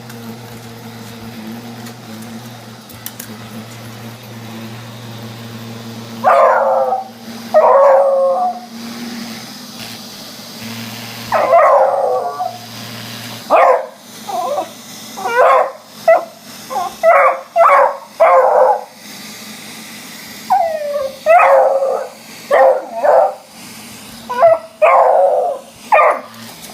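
A robot vacuum cleaner runs with a steady hum. From about six seconds in, a beagle bays and howls at it in a string of loud calls, with shorter, quicker barks in the middle stretch.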